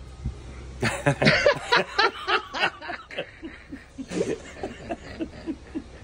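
Laughter: a run of short chuckling bursts starting about a second in, easing off, then picking up again around four seconds.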